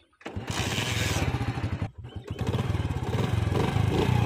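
Motorcycle engine starting and running with a fast, even beat. It catches a quarter second in, dips briefly about two seconds in, then picks up again and runs on.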